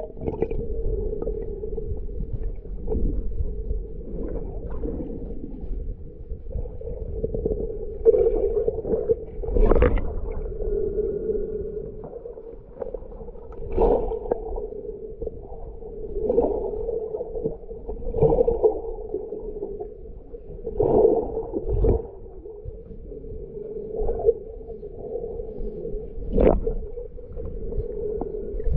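Muffled underwater sound picked up by a camera held below the surface: a steady low hum with swells of water noise every two to three seconds.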